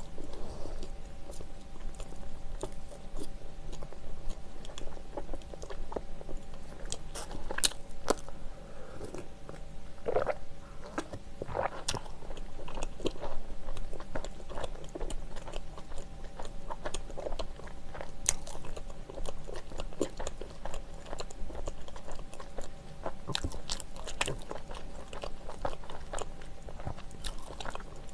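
Close-miked chewing of soft, chewy cheese-filled bread, a steady run of wet mouth clicks and smacks. The bread is microwaved and not tough.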